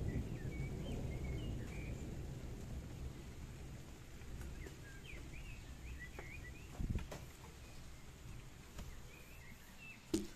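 Thunder from a lightning strike about 2 km away, a low rumble that slowly dies away, with small birds chirping over it. A sharp knock near the end as the camera is moved.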